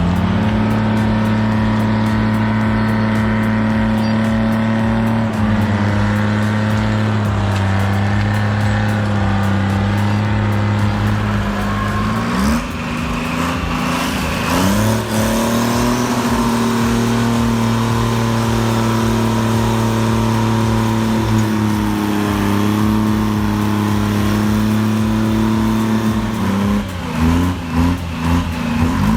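Heavy diesel engine of a logging machine running hard under load. Its engine speed drops and climbs back up a couple of times, about halfway through and again near the end.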